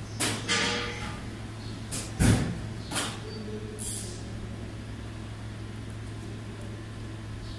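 Sharp metal clinks and knocks from a hand tap wrench being worked in the threads of a compressor casing, the loudest a thump about two seconds in, then only a steady machine hum.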